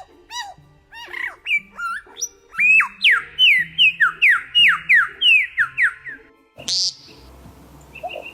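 A bird whistling: a few short arched calls, then a quick run of loud whistles, each sliding down in pitch, about two a second, ending in one sharper call, over background music.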